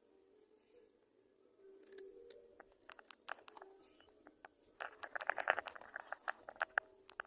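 Nestling birds in the nest, with scattered small clicks and rustles, then a rapid burst of short, high cheeps about five seconds in, typical of chicks begging when food arrives.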